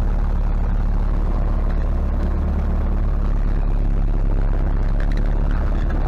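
MTZ-80 tractor's four-cylinder diesel engine running steadily, heard from inside the cab.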